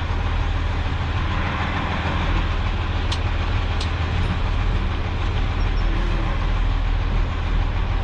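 Heavy truck's engine running steadily under load as the empty truck climbs a steep hill.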